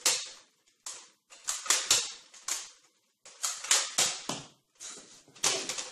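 Small Nerf dart blaster fired again and again: a quick run of sharp pops and clicks in uneven clusters with short pauses between.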